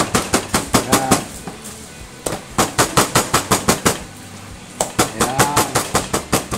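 A large kitchen knife rapidly beating a butterflied chicken breast thin on a wooden cutting board, used in place of a meat mallet to flatten the meat. Quick sharp knocks about five a second, in three runs with short pauses between them.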